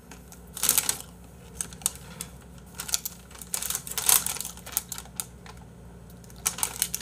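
Thin clear plastic bag crinkling and rustling in irregular bursts as it is handled and pulled open.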